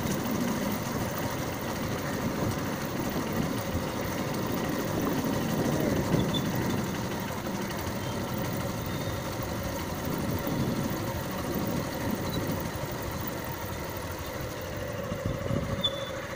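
Motorbike engine running steadily as the bike rides along.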